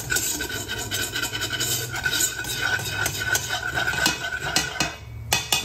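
Metal wire whisk scraping and clattering against the bottom and sides of a stainless steel pot as it whisks a roux of flour in butter and bacon fat. The scraping eases off near the end, leaving a few sharp metal clicks.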